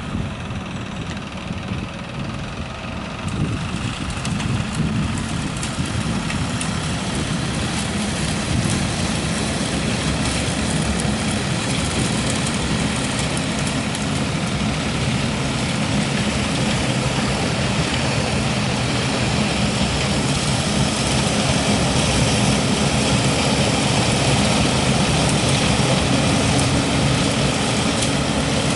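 Compact tractor engine running steadily while towing a leaf vacuum collector, a constant low drone under a dense hiss from the collector's suction fan, growing gradually louder.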